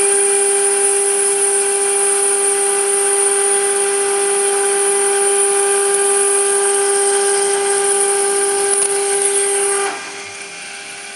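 CNC router spindle milling thick aluminum at a slow feed, giving a loud, steady, high-pitched machining whine. About ten seconds in, the cut finishes and the sound drops suddenly to the quieter spindle still running.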